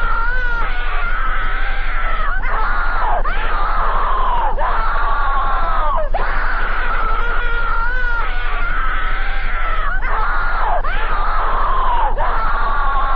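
Loud, heavily distorted screaming that repeats in segments about a second long, each one bending down in pitch at its end, over a steady low hum.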